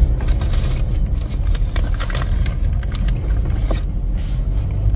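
Car cabin rumble while driving: a steady low road and engine noise, with scattered light knocks and rubbing close to the microphone.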